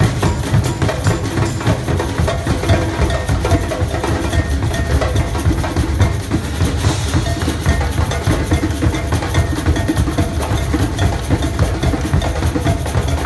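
Percussion ensemble drumming a dense, steady rhythm, with deep drums strongest.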